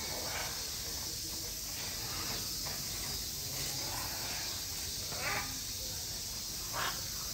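Steady high hiss of outdoor background noise, with three brief faint calls: one about half a second in, one past five seconds and one just before seven seconds.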